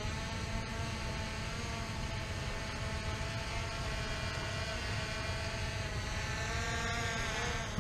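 Multirotor drone's propellers buzzing steadily as it hovers overhead, the pitch wavering briefly near the end.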